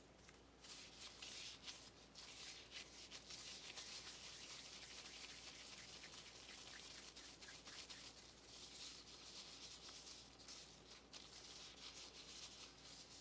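Faint rustling and rubbing of thin plastic food-prep gloves as hands roll soft mung bean paste into balls between the palms, with a short lull about two thirds of the way through.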